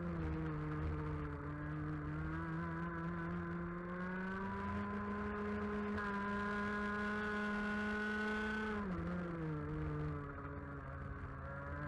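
125cc two-stroke TaG kart engine at racing speed. Its pitch drops as the kart slows into a corner at the start, climbs steadily under acceleration for about nine seconds, drops again for the next corner, and picks up once more near the end.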